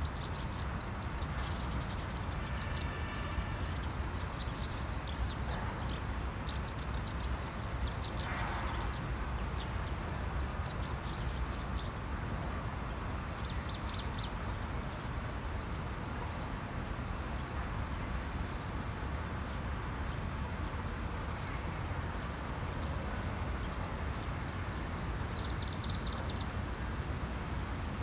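Steady low background rumble with no speech or music, and a few brief, faint high chirps about a third of the way in, near the middle and near the end.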